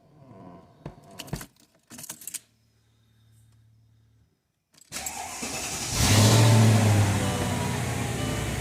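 2002 Mercedes CL500's V8 engine being started on a test run after new spark plugs, coil packs and plug wires. A few clicks and a faint hum come first. About five seconds in the engine cranks and catches, flares up loudly, then settles into a steady high idle.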